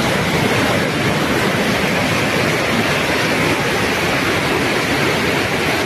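A flash-flood torrent of muddy water surging down a street: a loud, steady rush of water.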